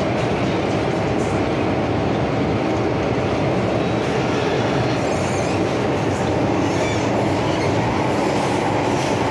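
MTR Island Line M-Train, a Metro-Cammell electric multiple unit, running along the line with a steady, even rumble of wheels and running gear.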